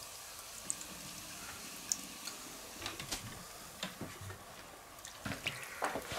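Cola pouring from a plastic bottle into a metal roasting tray of ribs: a faint trickle and splash of liquid, with a few light clicks.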